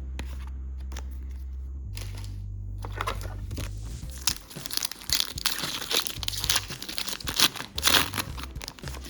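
Foil wrapper of a Pokémon card booster pack crinkling and tearing open, a dense crackle from about four seconds in, over low background music.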